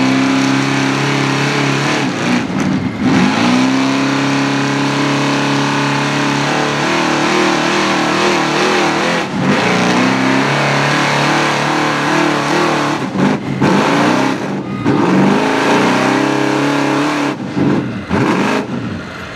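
Chevrolet street 4x4 pickup's engine held at full throttle under load as it pulls a weight-transfer sled across dirt, the note staying at a steady pitch. The engine cuts out briefly several times and drops away near the end.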